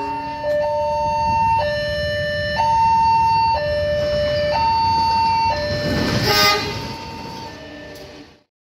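Railway level-crossing warning alarm sounding a two-tone hi-lo signal, switching between a higher and a lower tone about once a second, over a low rumble. A brief loud burst comes about six seconds in, and the alarm fades and cuts off near the end.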